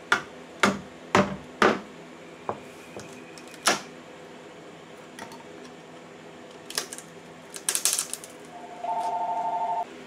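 Hammer blows knocking out a door seal and sill from a crawlspace access opening: about six sharp strikes over the first four seconds, then a quick cluster of clicks and taps about eight seconds in. A steady two-note electronic tone sounds for about a second just before the end.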